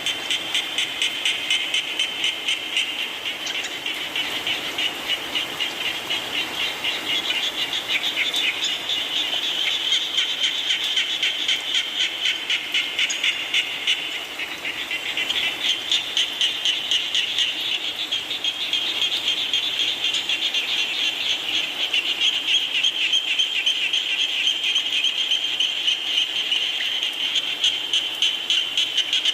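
Dense chorus of frogs calling, a continuous mass of fast, rhythmic pulsing calls that eases slightly about halfway through and then builds again.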